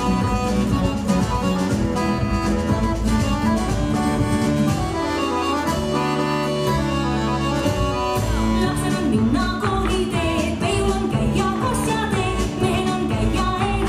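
Folk dance music, with a steady beat and changing bass chords, and singing in it.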